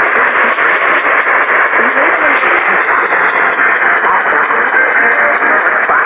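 A radio receiving a broadcast with very poor reception: loud, steady static hiss, with a voice faintly heard breaking through underneath, through a small, tinny speaker.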